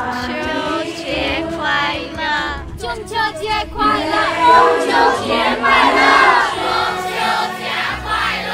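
Groups of people calling out a Mid-Autumn Festival greeting in unison, one group after another, over background music.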